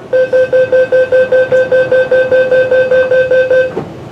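Door-closing warning beeps on an MTR West Rail Line train: a rapid run of even electronic beeps, about five a second, lasting about three and a half seconds. They signal that the doors are about to shut.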